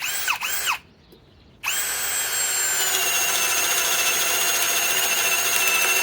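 Cordless drill boring a 1-1/8 inch spade bit into wood: two quick trigger blips, then a long steady run with a whine that sags slightly in pitch as the bit loads up. The drill is straining and cannot quite get the bit through.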